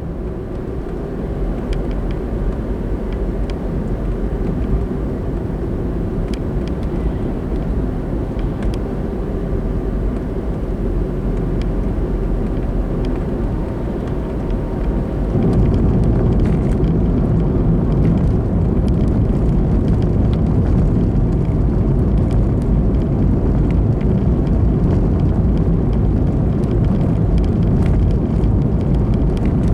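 Road noise of a car being driven: a steady low rumble of engine and tyres that grows louder about halfway through.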